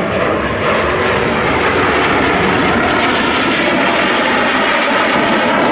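Loud, steady jet noise from an F-86 Sabre's turbojet as the fighter flies past. It cuts off suddenly at the end.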